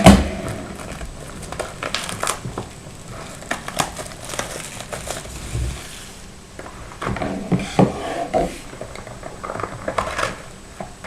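A sealed trading-card box being unwrapped and opened by hand: wrapper crinkling and cardboard handling. There is a sharp knock right at the start, then scattered clicks and rustles.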